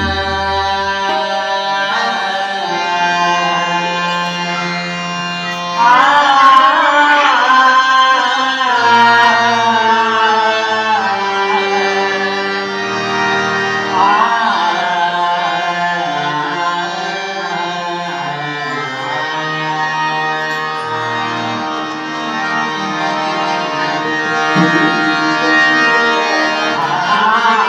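Marathi devotional abhang (bhajan) music: long held instrumental notes, with a man's voice singing slow, ornamented phrases that come in about six seconds in, again around fourteen seconds and near the end.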